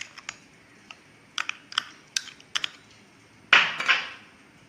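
Light clicks and taps of a utensil against a bowl as shallot paste is added to a chicken marinade, then a louder scraping clatter about three and a half seconds in.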